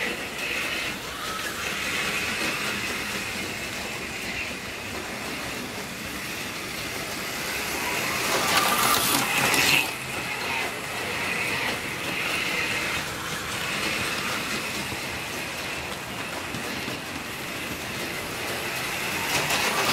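HO-scale model freight train rolling past on the track, led by Athearn EMD GP50 diesel locomotives. A steady running noise grows louder for a couple of seconds about eight seconds in, then drops suddenly.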